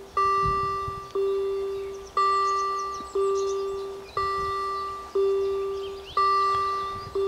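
Level-crossing warning bells striking about once a second, each stroke ringing on and fading before the next, the strokes alternating between a lower and a higher-sounding bell.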